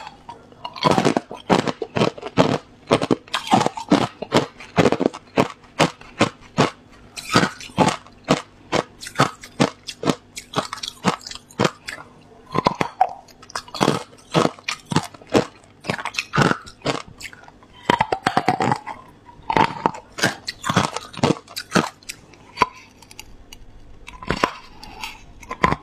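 Hard clear ice being bitten and crunched between the teeth: a rapid run of sharp cracks and crunches, coming in spells with short pauses.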